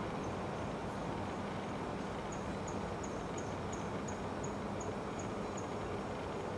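Steady background hiss with a high, thin chirp from an insect repeated about three times a second, starting about two seconds in and stopping near the end.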